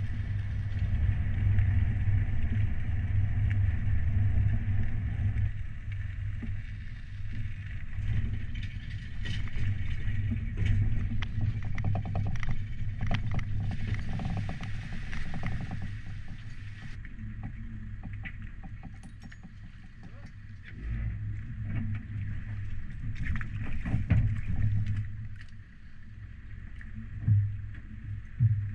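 A tow vehicle's engine running steadily with a low hum, with many short clicks and rattles from the boat trailer as it is reversed down a launching ramp.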